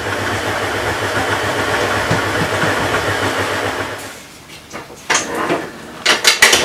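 Stand food mixer's motor running steadily on slow speed, its K-beater working pastry crumbs as water is added, then switching off about four seconds in. A few clicks and knocks follow near the end as the mixer head is lifted.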